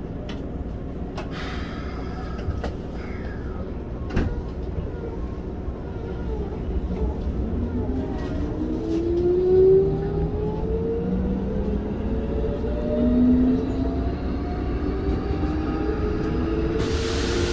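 Keikyu 1500 series field-chopper train accelerating away from a station, heard from inside the car: a few clunks early on over a steady rumble, then the traction motor and gear whine rising in pitch from about six seconds in. Near the end a sudden louder rush of noise comes in as the train enters a tunnel.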